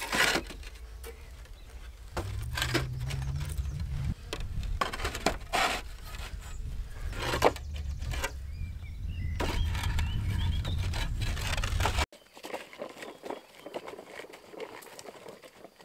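Irregular knocks and clinks of hard objects being handled over a low rumble. The rumble cuts off suddenly about twelve seconds in, leaving quieter scattered clicks.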